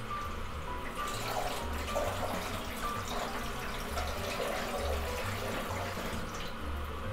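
Water poured in a steady stream from a plastic jug into a steel motorcycle fuel tank, splashing into the rust-remover solution already inside as the tank is filled for a soak. The stream thins out near the end.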